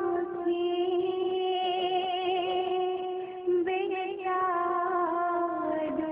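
A young girl's solo voice singing a naat, an Urdu devotional song in praise of the Prophet, in long held notes with wavering ornaments. She pauses briefly a little over three seconds in, then begins a new phrase.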